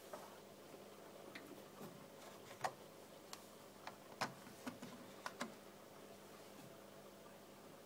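Small sharp plastic clicks and taps as an iPhone 5 and its adapter are handled and re-seated on a speaker dock's connector. There are about seven scattered clicks, the loudest about three seconds in and again a second and a half later.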